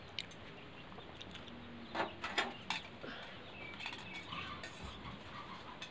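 A few light clinks and knocks of steel kitchen utensils and spoons, with faint bird chirps in the background from about three seconds in.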